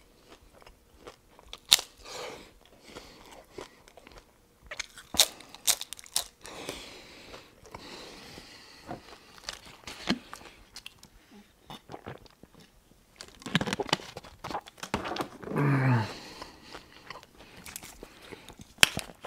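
Close-miked chewing of crispy hard-shell beef tacos: soft wet chewing broken by sharp, scattered crunches of the fried corn shells. A short hummed vocal sound comes about three quarters of the way through.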